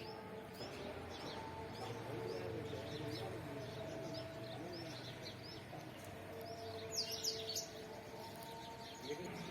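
Wild birds chirping, with short high chirps repeating about twice a second and a louder cluster of sharp chirps about seven seconds in.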